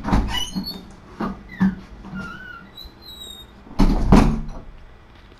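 Several knocks and bumps with a few short high squeaks between them; the loudest knocks come about four seconds in.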